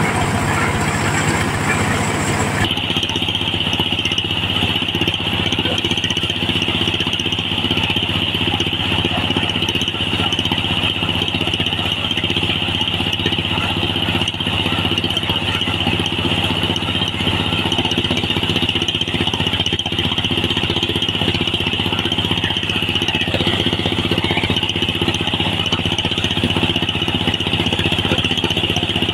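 Diesel-driven mobile corn sheller running steadily under load, the engine's steady note under a constant high whine from the threshing drum and blower as cobs are fed in. The sound shifts abruptly about three seconds in.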